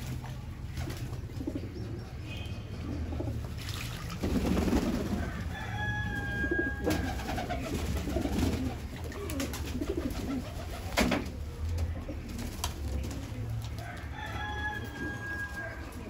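Pigeons cooing: low, rolling coos that come and go, with a few sharp clicks and a thin whistle-like tone twice.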